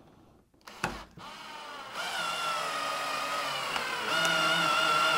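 Bosch 12 V cordless drill boring a pocket hole into a pine rail. After a knock just under a second in, the motor starts with a steady whine, which gets louder about four seconds in.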